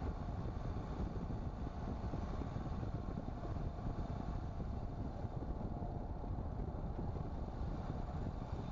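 Tata Nexon driving, heard from inside the cabin: a steady low rumble of road and engine noise with no distinct events.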